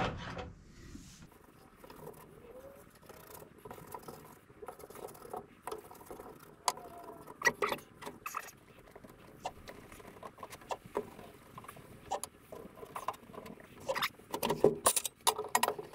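Brush scratching and dabbing as contact adhesive is spread on a panel, with scattered light taps and knocks that get busier near the end.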